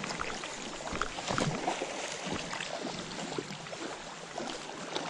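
Steady rush of moving water with a few short splashes or knocks scattered through it, while a hooked trout is being played.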